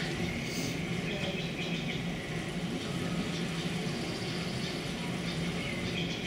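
Steady low hum of an auditorium's room noise, with a thin high tone in the first second or so.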